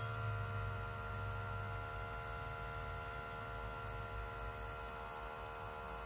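Outin Nano portable espresso machine's 20-bar pump running with a steady hum while it pushes water through to extract a shot of espresso. The hum cuts off right at the end as the shot finishes.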